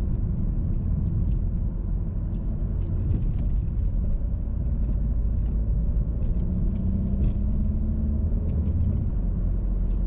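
Car engine and tyre rumble heard from inside the cabin while driving slowly uphill on a narrow lane; the engine note rises slightly about six seconds in, with a few light ticks from the road.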